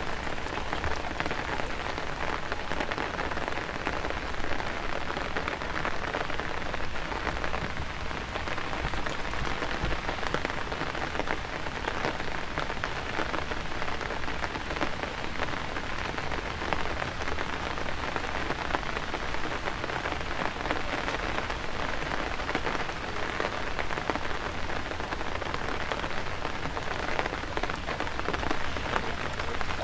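Steady rain, a dense even hiss dotted with many small drop ticks.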